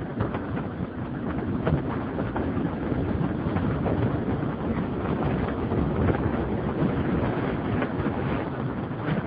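Wind rushing over the microphone of a BMW F650 Funduro motorcycle riding along the road, with its single-cylinder engine running underneath.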